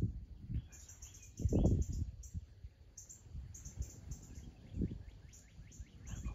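Birds chirping, with a quick run of repeated chirps in the middle, over uneven low rumbling buffets on the microphone; the strongest buffet comes about one and a half seconds in.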